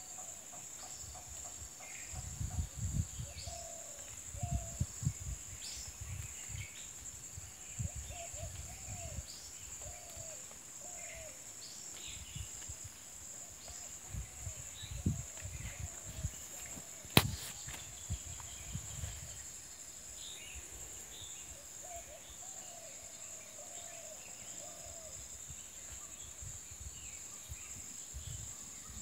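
Forest ambience: a steady high-pitched insect drone with scattered bird chirps and short calls, and intermittent low rumbling on the microphone. A single sharp click, the loudest sound, comes about halfway through.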